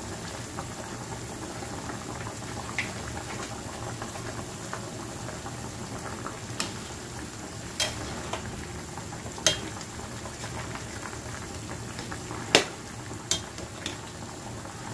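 Pot of chicken soup boiling steadily, a constant bubbling, while a metal ladle stirs it and clinks sharply against the metal pot about six times, the loudest knock near the end.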